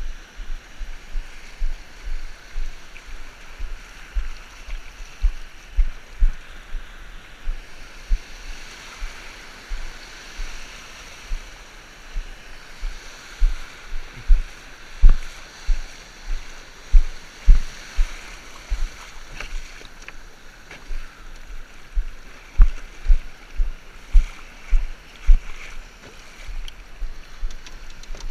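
Small ocean surf washing and hissing in the shallows, with a steady run of low thumps at about one or two a second, loudest around the middle.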